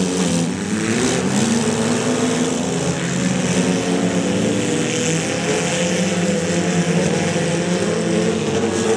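Several small four-cylinder demolition-derby cars revving at once, their engine pitches rising and falling as they accelerate, reverse and ram each other, with a couple of faint knocks about a second in.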